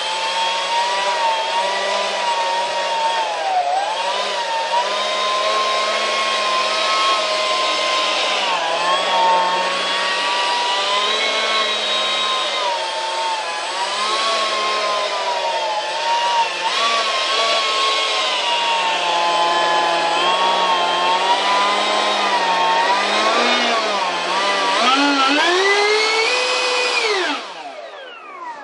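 70 mm electric ducted fan running at part throttle with a steady whine whose pitch wavers up and down as the throttle is worked. Near the end it spools up higher, then is cut and winds down with a quickly falling whine.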